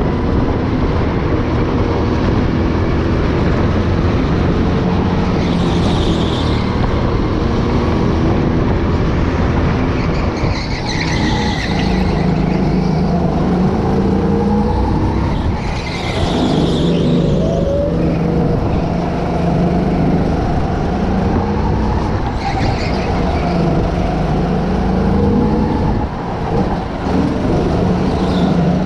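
Go-kart running hard, heard from on board, its motor pitch rising and falling through the laps. There are short tyre squeals in the corners, about four of them.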